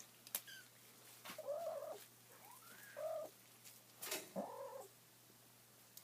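A kitten mewing three times, each mew a short call that rises and falls in pitch, with two sharp clicks, one near the start and one just before the last mew.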